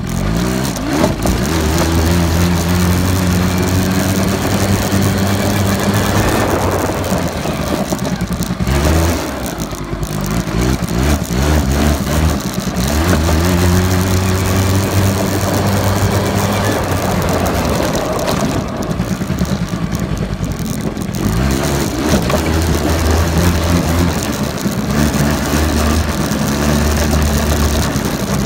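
Small off-road vehicle engine being ridden hard, revving up and easing off over and over, its pitch climbing with each acceleration. It eases off twice, about nine seconds in and again about two-thirds of the way through.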